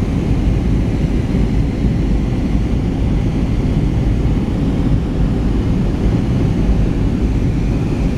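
Steady low rumble of an airliner cabin in flight: engine and airflow noise through the passenger window, with a faint steady hum.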